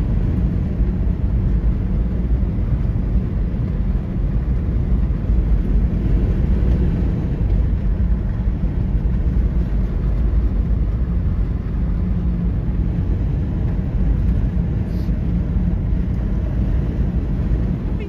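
Steady low rumble of a car heard from inside the cabin as it drives over a snow-covered road, engine and tyre noise together.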